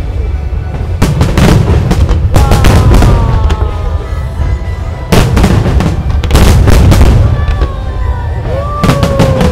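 Aerial fireworks bursting in quick succession: sharp cracks over a continuous low booming rumble. Long drawn-out tones slide down in pitch between the bursts.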